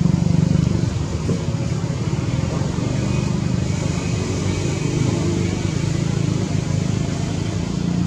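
Steady low engine rumble of a running motor vehicle, a little louder in the first second.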